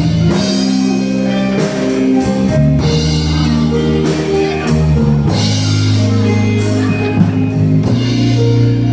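Live rock band playing, with guitar, steady bass notes and drum kit hits.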